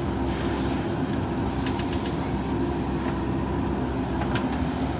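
JCB 3DX backhoe loader's diesel engine running steadily under work, with a few sharp metallic clanks about two seconds in and again near the end.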